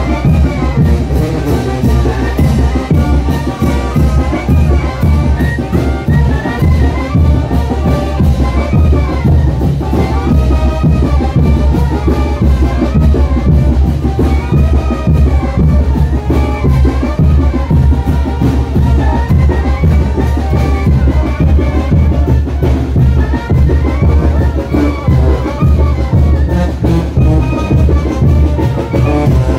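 Brass band music with drums playing the bouncing rhythm of the chinelo brinco, continuous and loud.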